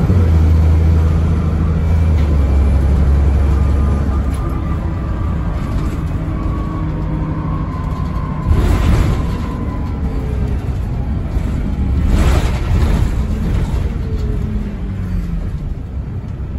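London double-decker bus engine running hard, a strong low drone for the first four seconds that then eases off. Two short hissing bursts come about 8.5 and 12 seconds in.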